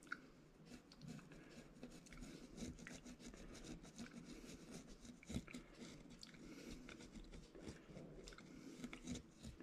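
Faint, irregular small clicks and crackles of a hand tool dabbing and working modelling paste onto the layout.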